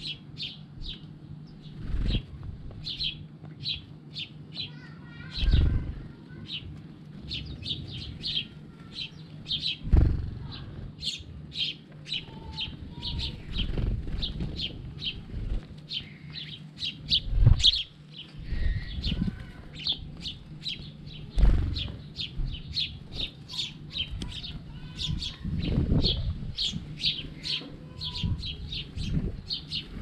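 A flock of house sparrows chirping continuously in quick short notes, several a second, with a few low thumps such as wingbeats.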